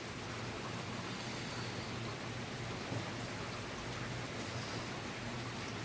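Steady background hiss with a faint low hum and no distinct event: the recording's own noise floor.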